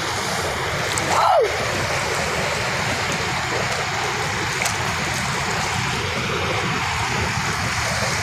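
Muddy floodwater rushing steadily. About a second in, a short sound falling in pitch stands out above it.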